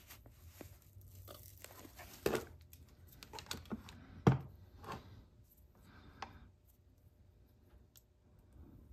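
Handling noises from loading a cap-and-ball revolver with black powder: rustling and clicks as a plastic powder bottle and a brass powder measure are handled, and powder is poured into a cylinder chamber. There are a few knocks on the wooden bench, the sharpest about four seconds in.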